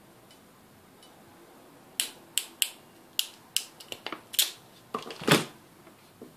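Ratchet crimping tool clicking as it is squeezed shut on a 1.5 mm² bootlace ferrule: a run of about a dozen sharp clicks starting about two seconds in. The loudest click comes near the end.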